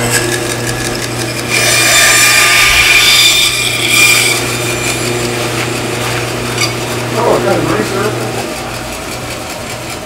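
Bandsaw running with a steady motor hum while its blade cuts through a wooden blank that is rotated on a pivot pin to saw a circle, the cutting loudest from about one and a half to four seconds in. The motor hum falls away and stops near the end.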